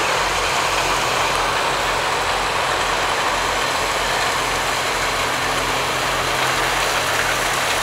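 John Deere 772D motor grader's diesel engine running steadily as it works gravel on the road, a constant low hum under an even hiss.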